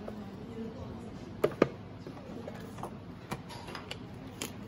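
Cardboard lash boxes and small plastic lash cases handled on a tabletop: a few sharp taps and knocks as they are moved and set down, the two loudest close together about a second and a half in.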